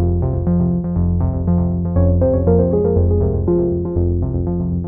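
Background music: a synthesizer track with a steady bass line and quick, repeating short notes.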